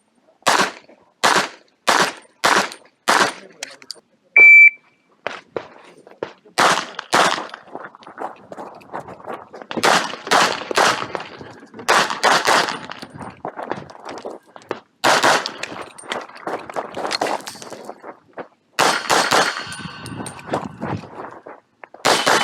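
Glock 45 9mm pistol firing a string of shots: five quick shots about two-thirds of a second apart, then a short high electronic beep from a shot timer, then more shots in pairs and small groups, each with a short echo.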